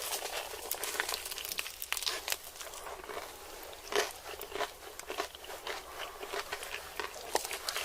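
Close-miked eating sounds: roast chicken being chewed, with many small irregular crunches and crackles and a sharper crunch about halfway through.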